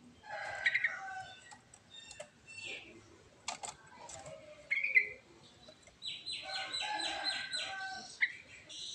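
Yellow-vented bulbul (trucuk) singing: short bubbly chirps and slurred notes, then a rapid chattering run of repeated notes about six seconds in.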